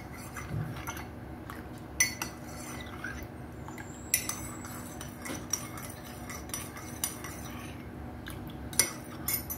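Steel spoon stirring cornflour slurry in a ceramic mug, clinking against the sides in irregular taps.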